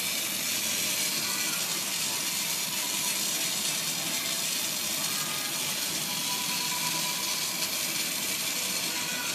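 Glassblowing torch flame hissing steadily while glass is worked in it.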